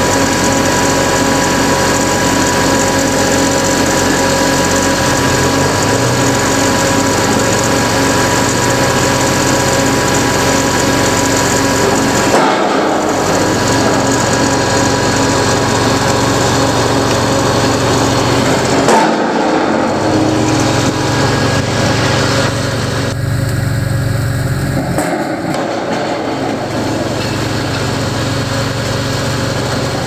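Heavy construction machinery engine running steadily, a loud drone with a few fixed tones in it, changing abruptly a few times.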